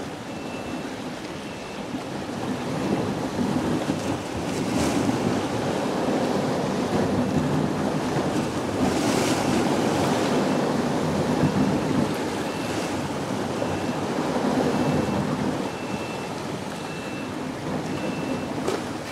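Wind blowing across the microphone over choppy, whitecapped water, with waves washing; it swells in stronger gusts about five, nine and thirteen seconds in.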